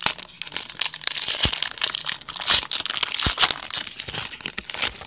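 Plastic foil wrapper of a trading-card pack crinkling and crackling as it is torn and worked open by hand.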